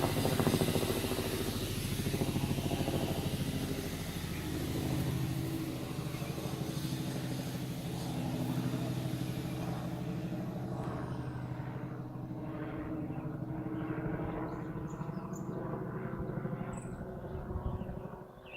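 Two-blade Robinson helicopter flying past, its engine and rotor noise loudest at first, then fading steadily as it moves away; the high end dies out about halfway through.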